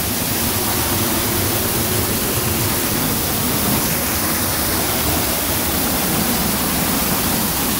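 Waterfall in flood after heavy rain: water pouring and splashing in a steady, dense rush close by.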